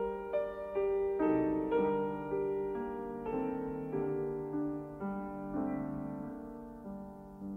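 Slow solo piano music: single notes and chords strike and ring away, coming further apart and getting softer toward the end.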